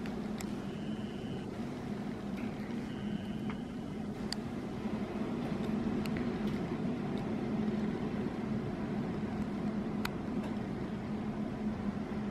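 A steady low mechanical hum, with a few faint clicks and two short high-pitched tones about one and three seconds in.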